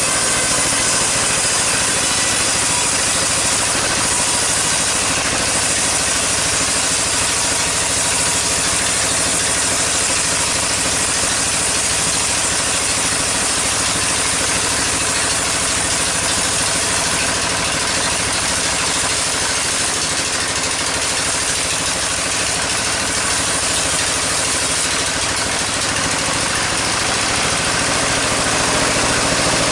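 Sawmill machinery running steadily: a loud, continuous mechanical drone with a low steady hum and dense hiss that never lets up.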